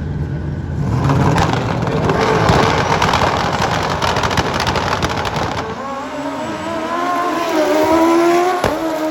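Drag racing motorcycle engines at full throttle down the strip: a loud ragged blast for several seconds, then a clear engine note climbing in pitch with short dips at the gear changes.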